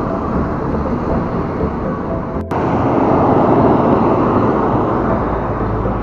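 Traffic and riding noise from a bicycle in city traffic: wind on the camera microphone and a city bus running close alongside. There is a brief dropout about halfway through, after which it is louder.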